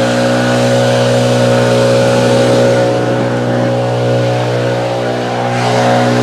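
Backpack leaf blower running steadily, its engine note holding one even pitch, as it blows debris down a stone walkway.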